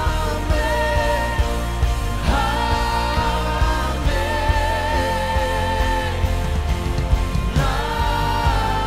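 Live worship band music: singers hold long notes on "amen" over a steady drum and bass beat, with new sung phrases coming in about every two seconds.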